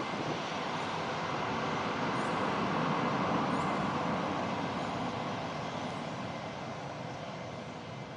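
Jet aircraft engines passing by: a steady rushing that swells to a peak about three seconds in and then slowly fades.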